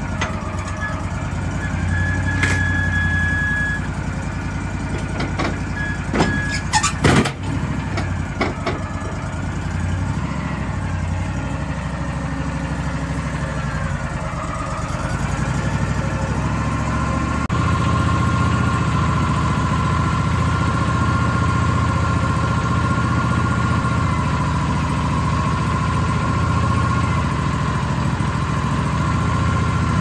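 Wood-Mizer LT40 hydraulic sawmill running, its engine going steadily, with a few sharp knocks about seven seconds in. From about halfway the sound steps up slightly to a steadier, louder tone.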